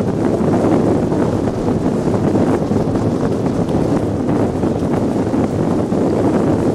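Wind rushing hard over the microphone of a two-seater iceboat sailing fast across the ice in a strong wind: a loud, steady rush.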